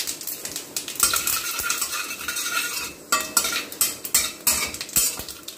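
Metal utensil scraping and clinking against a stainless steel kadai, an irregular run of strokes, while cumin seeds and a cinnamon stick are stirred in hot oil at the start of a tempering.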